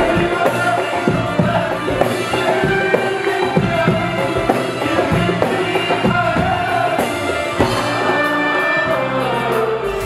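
Live Lebanese Arabic song: a male vocalist singing a wavering melody over a band, with drums and percussion keeping the beat.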